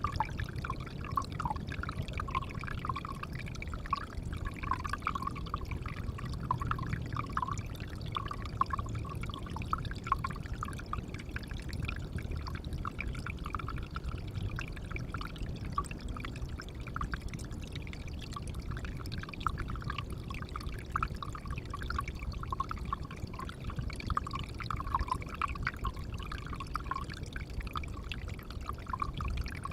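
Water pouring and trickling into a pond, a steady run of dense little splashes over a low rumble.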